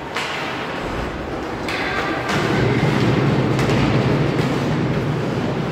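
Ice hockey play in an arena rink: sharp clacks of sticks and puck against the ice and boards, a handful of them, over a steady low arena rumble that grows louder about two seconds in.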